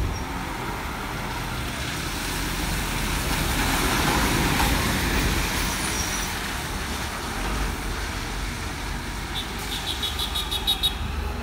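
Private bus driving past close by and pulling away, its engine and tyres running over street traffic noise, loudest about four seconds in. Near the end comes a rapid run of high clicks.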